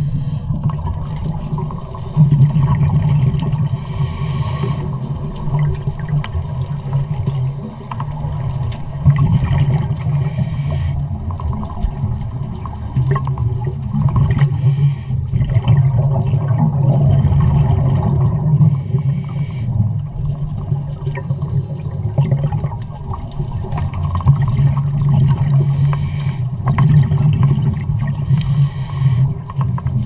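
Underwater sound of a scuba diver breathing through a regulator: a rush of breath and bubbles comes every three to five seconds over a steady low drone.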